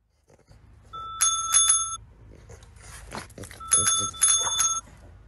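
Chrome desk bells (service bells) rung by a French bulldog pressing down with its paw: two quick dings about a second in, then two more near the end, with soft knocks in between.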